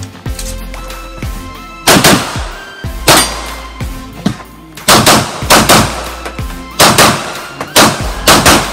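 Pistol shots during a fast practical-shooting stage run: the first shot about two seconds in, then about nine more in quick pairs and short strings, each sharp and loud with a brief ringing tail.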